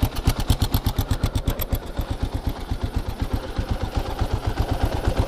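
Kawasaki KLR 650's single-cylinder engine idling, with an even beat of about ten firing pulses a second.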